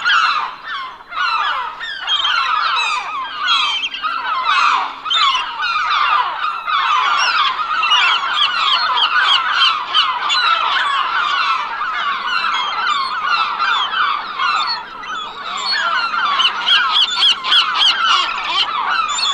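A flock of gulls calling all at once: many short, overlapping cries, with no break between them.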